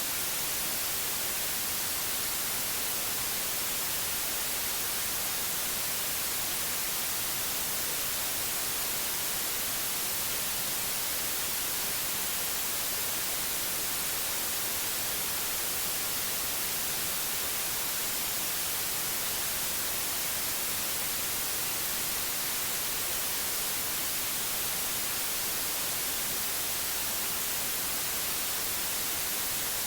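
Gentle white noise: a steady, even hiss, brightest in the high range, with no change in level or pitch.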